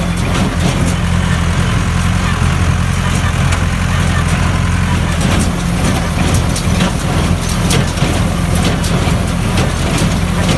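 International 644 tractor's diesel engine running steadily, with repeated sharp knocks over it.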